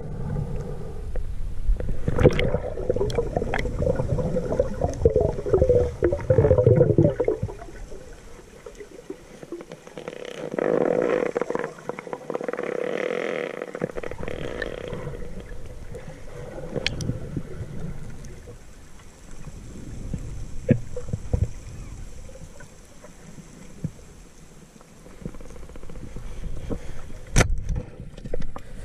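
Underwater noise picked up by a submerged camera: gurgling, churning water with scattered short clicks and knocks, loudest in the first seven seconds and swelling again about ten seconds in.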